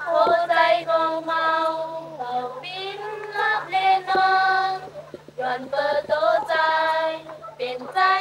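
Young women singing a minority folk song together, in long held notes that slide from one pitch to the next.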